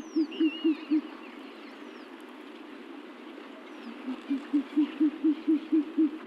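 An animal calling in a rapid series of low hoot-like pulses, about four a second, in two bouts: one at the start and another in the second half. A few high bird chirps are heard early on over a steady outdoor hiss.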